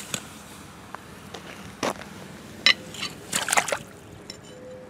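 Muddy puddle water sloshing and splashing as a torch-cut steel bracket plate is worked about in it, with sharp splashes about two seconds in and a cluster between three and four seconds in.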